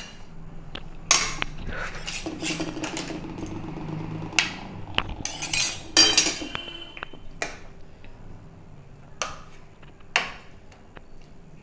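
Metal spatula and serving spoon knocking and scraping against a metal cooking pan, in a string of separate clinks and scrapes. The loudest come about a second in and around six seconds in.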